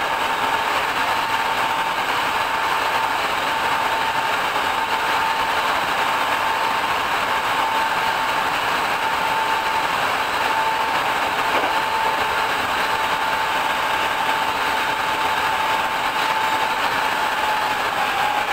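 Hankyu 5300 series resistance-controlled electric train running at speed, heard from on board: a steady roar of wheels on rail under a steady whine from the traction motors and gears. The whine's pitch begins to fall near the end as the train slows.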